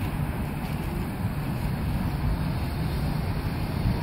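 Low, steady rumble of street traffic and an approaching light-rail tram running along street track.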